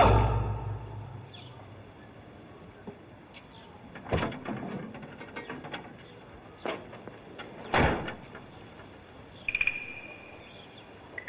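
A music hit fading out at the start, then quiet ambience broken by a few separate knocks or thumps, the loudest about eight seconds in, with faint short chirps.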